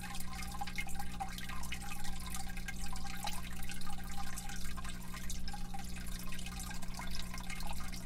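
Water dripping and trickling in a turtle tank, with scattered small drip clicks over a steady low hum.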